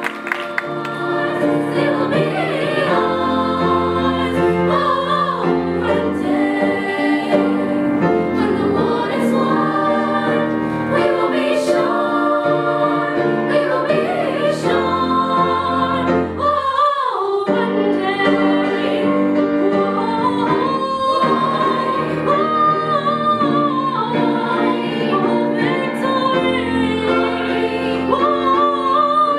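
A girls' vocal ensemble singing together, with a short break in the sound a little past halfway.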